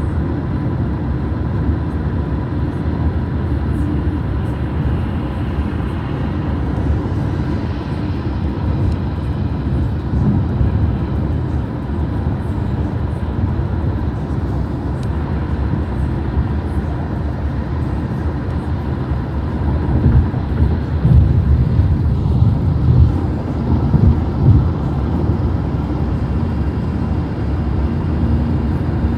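Car driving at road speed: a steady low rumble of tyres and engine, with a few louder bumps about twenty seconds in.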